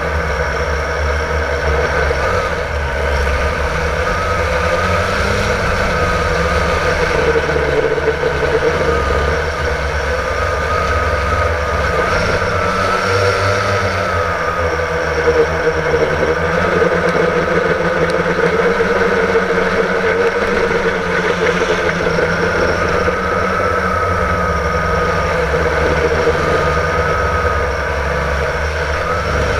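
Blade 350 QX quadcopter's electric motors and propellers whirring steadily, heard from the GoPro on the drone itself, with a low rumble underneath. The pitch of the whine wavers up and down again and again as the motors speed up and slow down in flight.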